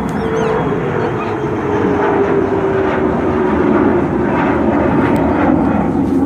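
Jet airliner passing close: loud steady engine noise with a whine that slowly falls in pitch.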